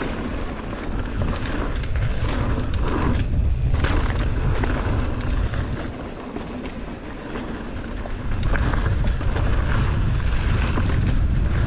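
Mountain bike descending a trail: wind buffeting the microphone over tyre and frame rattle, with sharp knocks from bumps about three to four seconds in. It goes a little quieter for a couple of seconds past the middle.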